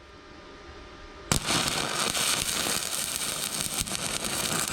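Stick-welding arc with a 7018 low-hydrogen rod, struck about a second in and then crackling and sputtering steadily while laying a tack weld.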